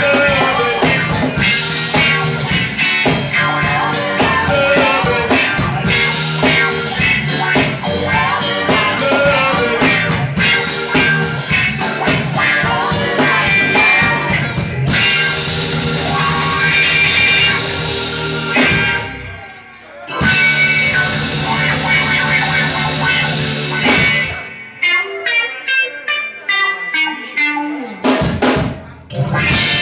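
Live soul band playing an instrumental passage: electric guitar over a drum kit. About two-thirds through the band drops out briefly, and near the end it plays short stop-start hits with gaps between them.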